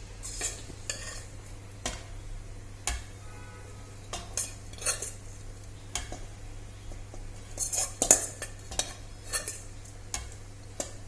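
A spoon stirring and scraping rice with grated coconut and chopped onion in a hot pressure cooker pot, giving irregular clinks and scrapes against the metal, with light sizzling from the coconut oil.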